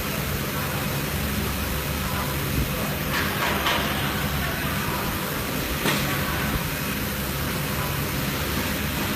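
CNC machining center running steadily, a low hum with a broad hiss over it, broken by a few short clicks about three seconds in and again near six seconds.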